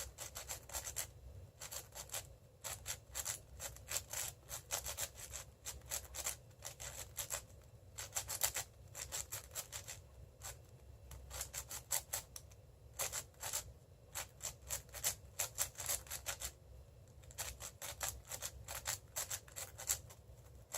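A 6x6 speedcube being turned fast by hand: plastic layers clicking and scraping in quick runs of turns with short pauses between, as the centers are built mid-solve, ending in a commutator.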